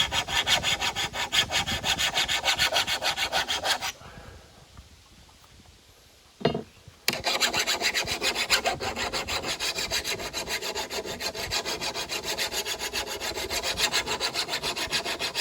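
A worn flat file scraping in quick, even push strokes along the edge of a steel lawn mower blade, a rasping rub. The file is cutting poorly because it is worn and the blade is wet. The filing stops after about four seconds, a short knock follows, and the strokes resume a few seconds later.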